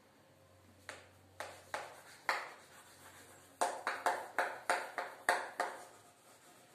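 Chalk tapping on a blackboard as a word is written: a few scattered sharp taps, then from about three and a half seconds in a quick run of taps, roughly four a second.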